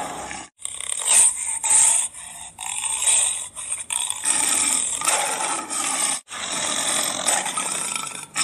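Big-cat growls and roars, edited and blended from the calls of two cat species, in a few spliced segments with sudden cut-outs about half a second in and again near the end.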